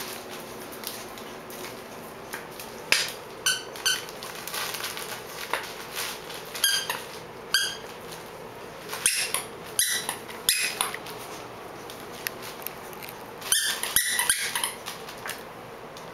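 Cavalier King Charles Spaniel puppies at play: short, high-pitched squeaks and yips come every second or two, with a cluster near the end, over light scuffling on the mat.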